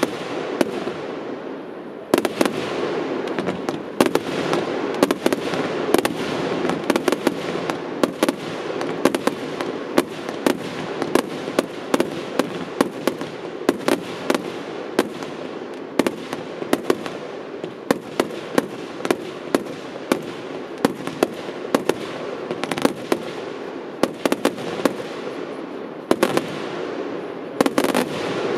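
Fireworks display in full barrage: many sharp bangs, several a second, over a continuous rush of noise from shells and effects going off together.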